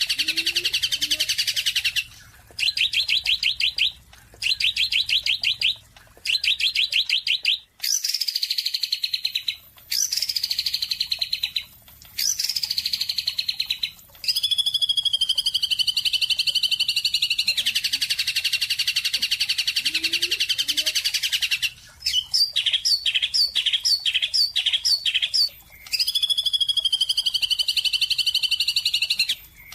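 Songbird chirping in phrases a few seconds long, broken by brief abrupt gaps. The phrases include fast, high trills, calls that slide down in pitch, and longer continuous song.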